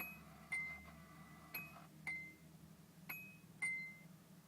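A car's warning chime sounding a repeated two-tone ding-dong, about one pair a second, with the ignition switched on. Under it runs a faint steady low hum from the electric fuel pump priming.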